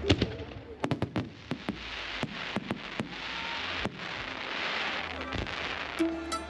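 Aerial fireworks going off: a string of sharp, irregular bangs and cracks over a steady hiss, with the show's music coming back in near the end.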